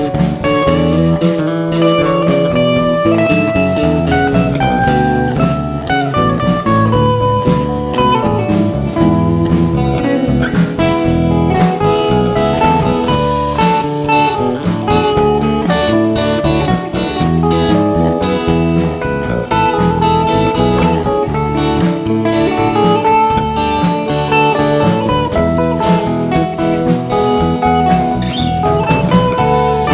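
Live band playing a blues-rock tune, with a lead guitar solo of gliding, bent notes over bass and drums.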